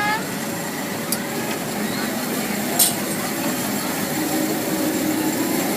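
Steady running noise of a small ride-on 'choo choo' train, with faint voices and a short sharp hiss about three seconds in.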